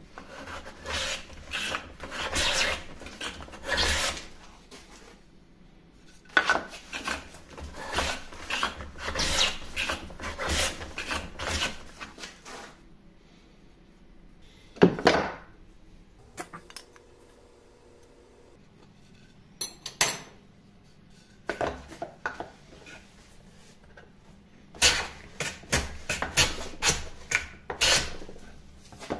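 Hand plane run on its side along a shooting board, trimming the end of a wooden blank in quick, rasping strokes, in several runs separated by pauses. One sharp knock about halfway through.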